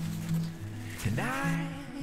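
Background music: steady held low notes with a swooping, upward-gliding phrase that repeats about once a second.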